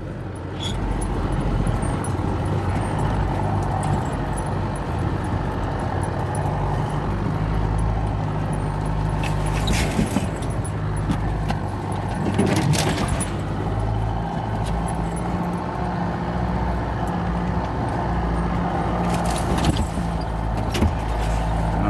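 A 4x4 running slowly over a rough bush track, heard from inside the cabin: a steady low engine drone with road noise. A few brief scratchy noises come through, about ten seconds in, around thirteen seconds and near the end.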